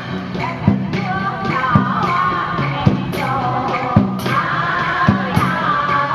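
Traditional Vietnamese water puppet music: a wavering melody, with some singing, over a steady drum beat struck about once a second.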